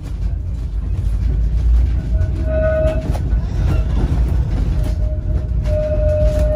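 1937 Brush railcoach tram 634 running, heard from inside its saloon: a steady low rumble from the wheels and running gear, with two held whining tones at one steady pitch, the second longer, about two and five seconds in.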